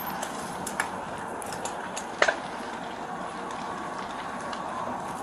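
A large building fire burning with a steady rushing noise and a few sharp pops, the loudest a quick double pop about two seconds in.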